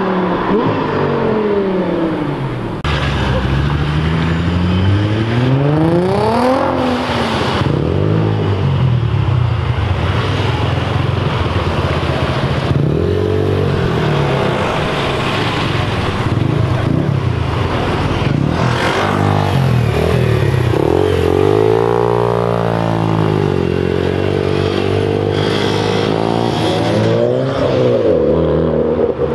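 Modified cars driving off one after another, engines revving and accelerating past. The engine pitch climbs and falls again and again as each car pulls away.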